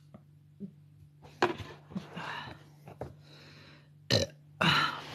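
A person burping loudly several times, with a short sharp burp about four seconds in followed straight away by a longer one.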